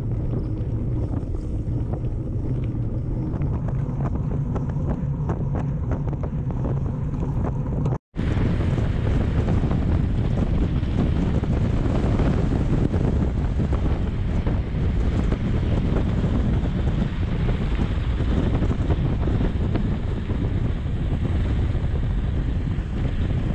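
Wind buffeting the microphone of an action camera on a moving mountain bike, with a steady low rumble of tyres on asphalt. The sound cuts out for an instant about eight seconds in and comes back louder.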